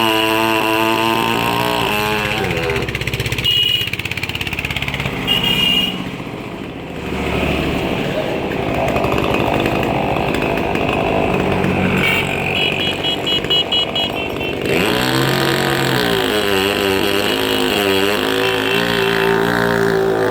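Chainsaw engine running under load while cutting, its pitch rising and falling as the throttle is worked.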